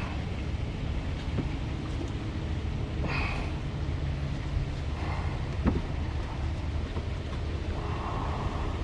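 Steady low rumble with a few light clicks and knocks of hand work on a car's coolant hoses and water pump fittings. The sharpest knock comes about five and a half seconds in.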